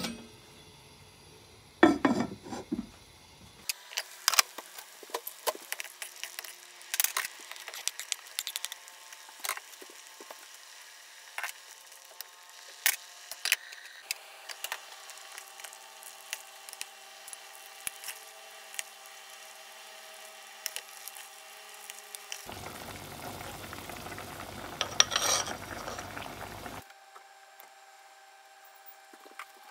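Earthenware hot pot of mushrooms and vegetables boiling in broth: irregular ticking, popping and sizzling of the bubbling liquid, with a few louder knocks of the pot, the first about two seconds in.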